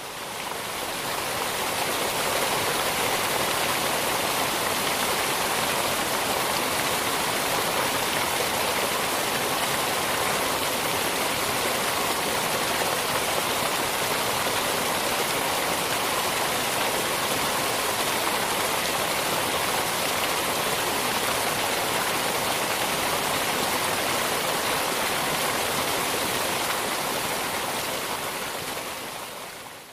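Steady rush of falling water, like a waterfall pouring into a pool. It fades in over the first couple of seconds and fades out near the end.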